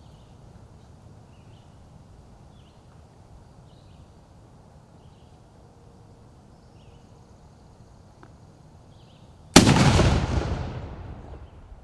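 A Civil War–style field cannon fires once, about nine and a half seconds in: a single sudden, very loud blast whose echo dies away over about two seconds. Before it there are only faint, regular chirps.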